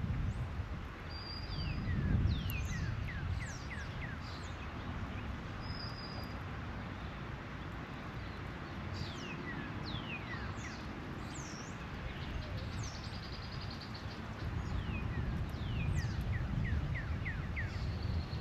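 Outdoor birdsong: many short, falling whistled notes, with quick runs of four to six notes twice. A low rumble of wind on the microphone sits underneath.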